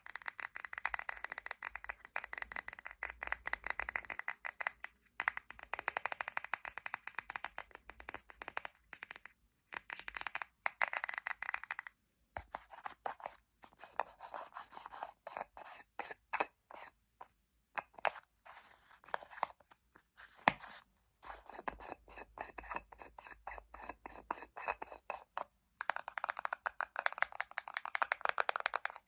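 Fingernails tapping and scratching rapidly on small cosmetic containers, in quick runs of crisp clicks with a few short pauses.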